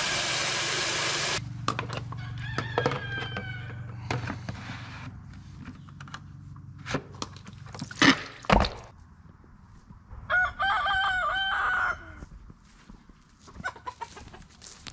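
Rooster crowing: one long, wavering crow about ten seconds in, with shorter chicken calls earlier on. A steady hiss cuts off about a second and a half in, and two sharp knocks come close together around eight seconds in.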